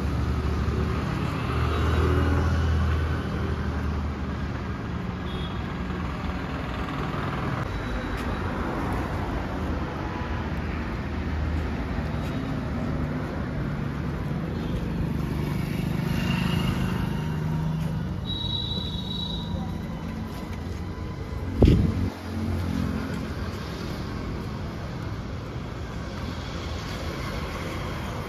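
Road traffic running past, with low engine hum from passing vehicles. A single sharp knock stands out about three-quarters of the way through.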